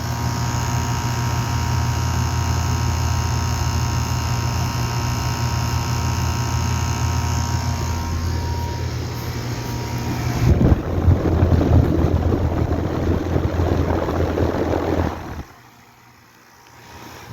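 Goodman GSX14 3-ton air-conditioner condenser running: a steady hum from its Copeland scroll compressor and outdoor fan, with a layer of fine whining tones over it. About ten seconds in the sound turns rougher and gusting, and after about fifteen seconds it drops off abruptly to a much quieter hum.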